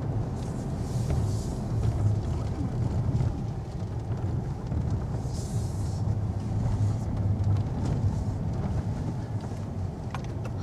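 Vehicle driving, heard from inside the cabin: a steady low engine and road hum. Brief hissing comes in about a second in and again about five seconds in.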